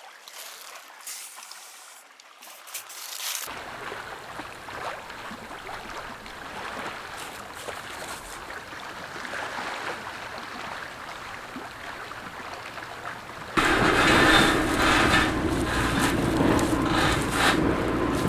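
A steady rushing noise, then an engine running steadily that comes in suddenly and louder about 13 seconds in.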